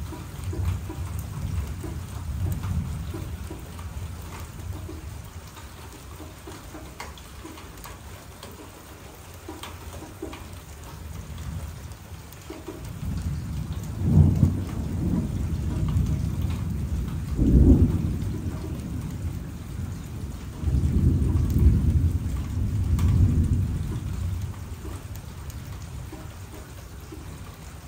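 Thunderstorm: steady rain with thunder rumbling several times, a low roll at the start and louder, longer rolls through the second half, with one sharper peak about two-thirds of the way through.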